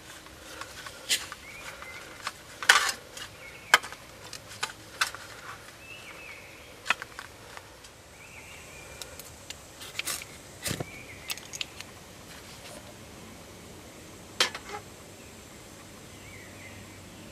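Irregular sharp clicks and clacks of camping stove gear being handled: a gas canister being fitted to a remote-canister stove's hose and a metal mug being set on the burner.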